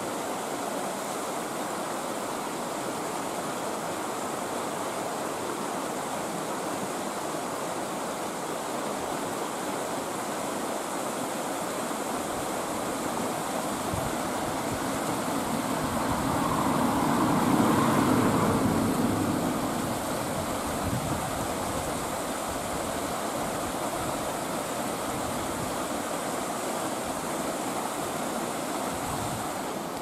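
Rushing mountain stream pouring over rocks, a steady rush of water that swells louder about halfway through and then settles back.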